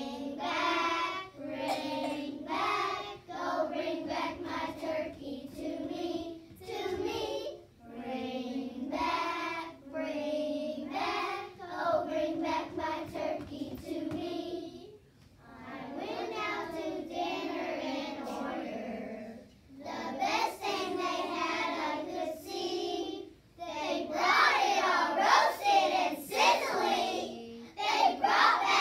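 A class of young children singing a song together, in sung phrases with short breaks between them, growing louder near the end.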